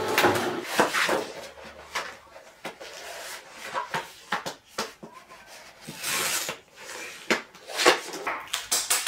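A sheet of vinyl being handled: irregular rustling and crackling as it is flexed and slid against a plastic trimmer rail, with scattered taps and clicks.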